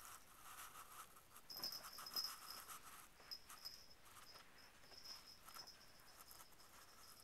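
Near silence: faint soft rustling and light pawing of a kitten on a rug and lace curtain, loudest about a second and a half in, with a faint high whine that comes and goes.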